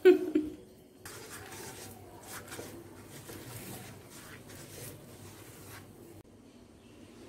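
A red silicone pastry brush stroking oil over a thin batter flatbread cooking in a pan: a soft sizzle with faint scratchy brush strokes, which stops about six seconds in.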